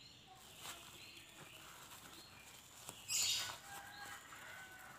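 Faint bird chirps in the background, with one short, louder rasp about three seconds in.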